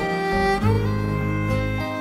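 Background music: slow, long held notes, moving to new notes about half a second in and again near the end.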